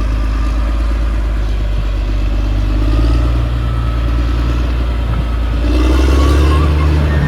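Caterpillar D6R XL bulldozer's diesel engine running steadily under load, growing louder with a change in engine note near the end.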